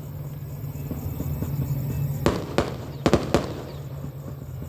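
Fireworks bursting: four sharp bangs in quick succession about halfway through, over a steady low hum.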